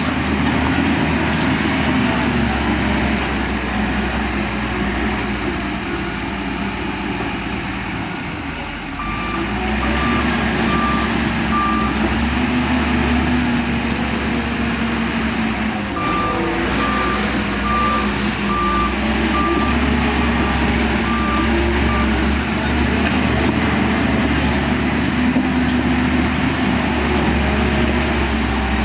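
Bulldozer's diesel engine running steadily under load, with a reversing alarm beeping in two runs, about nine seconds in and again about sixteen seconds in.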